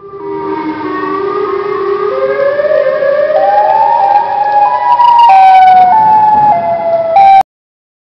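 Emergency alert siren tone, loud, climbing in pitch in distinct steps and growing louder over about five seconds. It then steps back down in pitch and cuts off abruptly shortly before the end.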